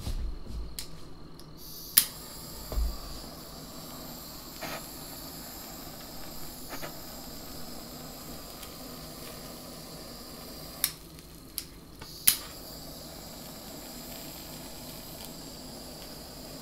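Handheld culinary torch burning with a steady hiss, starting with a sharp click about two seconds in. Around eleven to twelve seconds the hiss briefly dips among a few more sharp clicks, then carries on.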